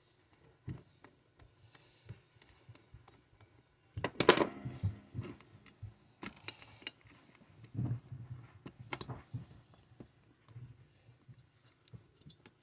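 Tools, screws and metal chainsaw parts clicking and clattering as they are handled and set down on a workbench during a teardown. There is a louder clatter about four seconds in and another about eight seconds in.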